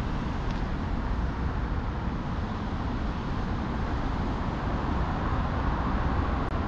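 Steady outdoor street noise: a continuous rumble of road traffic.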